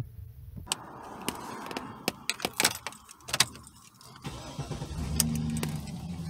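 Clicks and the jingle of a key at the ignition, then the 2009 GMC Sierra 2500's 6.0-litre V8 starts about four seconds in and runs at a steady idle. This is the first start after replacing the accelerator pedal position sensor to clear the reduced-power fault.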